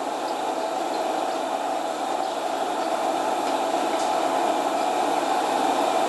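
Steady machinery noise in a dairy barn at milking time: an even, unbroken whoosh that slowly grows a little louder.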